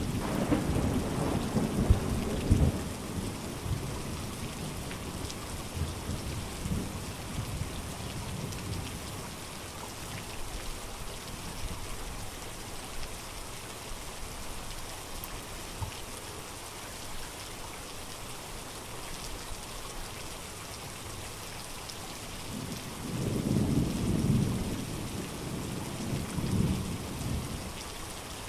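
Steady rain hiss with rolling thunder: a rumble at the start with two sharp cracks about two seconds in, fainter rumbles a few seconds later, and another long rumble near the end.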